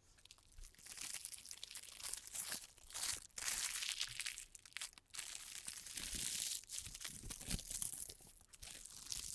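Packaging crinkling and rustling in irregular handfuls as a keyboard is unwrapped and lifted out of its box.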